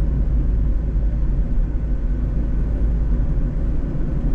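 Mazda Roadster RF driving on a winding road: the steady rumble of its four-cylinder engine and tyres.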